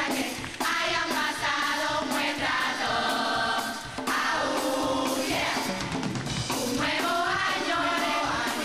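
A women's murga chorus sings its closing song together in full voice, over the murga's percussion keeping a steady drum beat.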